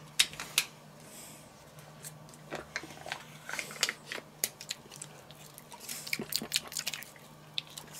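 Foil lid being peeled off a plastic cup of crème fraîche and the cup being handled, giving scattered small crinkles and clicks.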